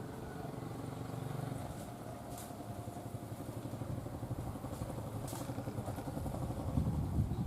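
A vehicle approaching, its low rumble growing steadily louder toward the end, with a few faint clicks.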